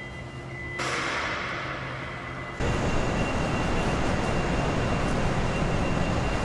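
Industrial machinery and workshop noise of a vehicle assembly line, a steady hiss with faint whining tones. It jumps abruptly to a different, louder texture about a second in and again at about two and a half seconds, as the footage cuts between stations.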